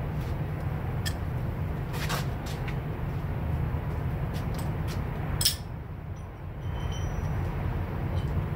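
Scattered light metallic clicks and knocks of parts and tools being handled, with one sharper knock about five and a half seconds in, over a steady low rumble.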